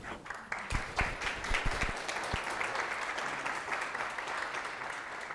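Audience applauding: many hands clapping in a dense, even patter that builds within the first second and holds steady, with a few low knocks in the first two seconds.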